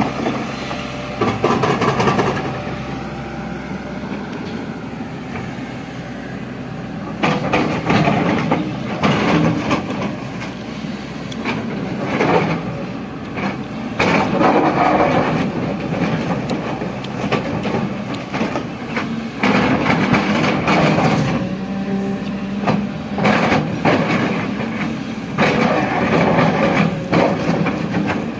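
JCB JS215 tracked excavator's diesel engine running, swelling into repeated loud surges as it works under hydraulic load while digging, with clanks and knocks among the surges.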